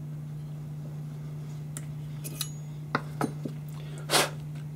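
Light metal clinks and taps of hand tools and small steel parts being handled, several in the second half, with a louder short scrape about four seconds in, over a steady low hum.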